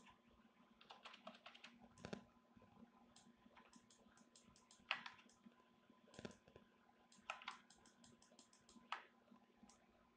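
Faint clicking of a computer keyboard and mouse, in scattered clusters of quick clicks, the loudest about five seconds in, over a low steady hum.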